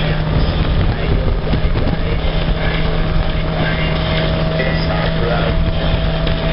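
Motorcycle engine running at steady revs, heard from on board while riding at speed, with heavy wind noise on the microphone.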